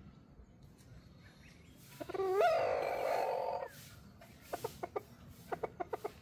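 Rooster crowing once, a single crow about two seconds in that rises at its start and is held for under two seconds. It is followed by a run of short, quick clucks.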